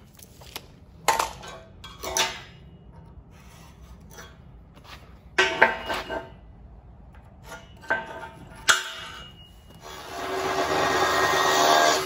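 Chalk scraped along a steel beam to mark out cut lines, several short scratching strokes, with a few sharp knocks as the tape measure and square are handled against the steel. About ten seconds in, a steady rushing noise takes over.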